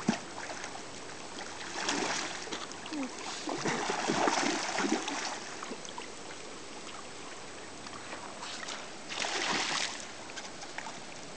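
Hooked Chinook salmon thrashing and splashing at the surface in shallow water, in three bursts about two, four and nine and a half seconds in, over the steady rush of the river current.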